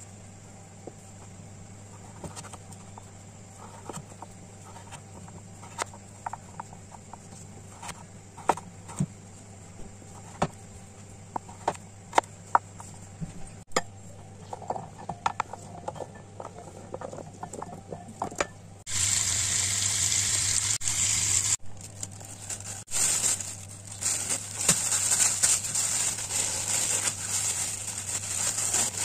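Kitchen knife cutting taro on a plastic cutting board, heard as scattered knocks and clicks. About two-thirds of the way in, a loud, dense rustling noise takes over, broken by a short pause, and near the end a plastic bag is crinkled as it is tied.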